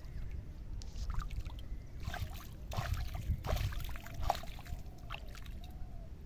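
A child's hand splashing and scooping pond water at the water's edge, in a run of quick splashes from about two seconds in to about four and a half.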